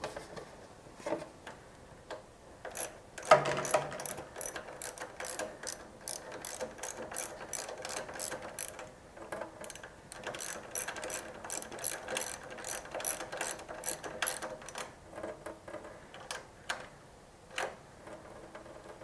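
Socket ratchet wrench clicking in steady runs of about three clicks a second as the mini bike's chain tensioner bolt is turned, with a brief pause about nine seconds in and a few scattered clicks near the end.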